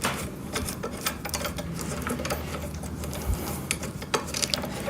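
Light, irregular clicks and clinks of small metal hardware being handled while fitting a wheel axle through a frame, with a sharper click right at the start.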